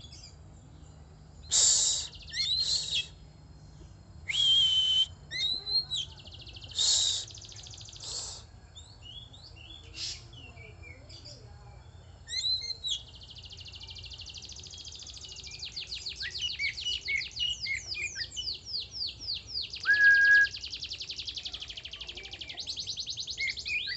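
Oriental magpie-robin (kacer) singing: loud separate phrases of harsh notes and whistles in the first half, then, about halfway, a fast run of repeated sweeping notes that carries on to the end.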